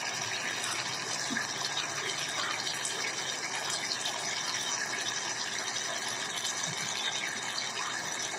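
Pot of fried eggplant in tomato sauce simmering on the hob, a steady hiss.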